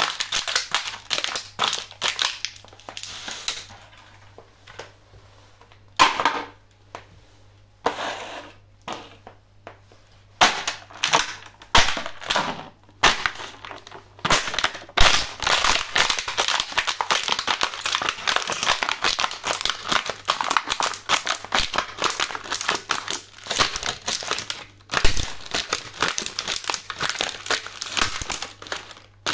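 Clear plastic quail egg trays crackling and crunching as they are crushed under steel stiletto heels. Dense crackling at first, then a stretch of separate sharp cracks, then near-continuous crinkling and crunching through the second half.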